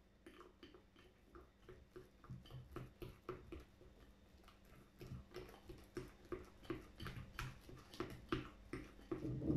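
Black plastic fork stirring thick, sticky glue slime in a bowl: a run of quick soft clicks and squelches, about two or three a second, growing louder toward the end.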